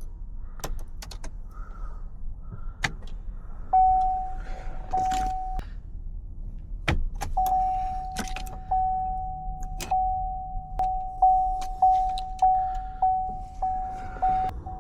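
Metal clicks and key jangling, then a car's warning chime dinging. It begins with a few slow dings and quickens to a steady run of dings about twice a second.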